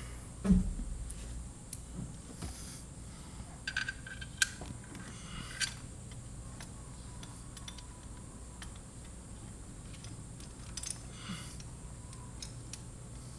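Hand tools and small metal parts clinking and tapping against the engine, a few sharp metallic clicks and short ringing clinks, with a thump about half a second in, over a low steady hum.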